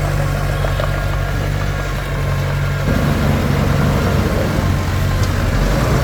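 Komatsu D21P bulldozer's diesel engine running steadily. About three seconds in it turns suddenly louder, with more noise above its low hum.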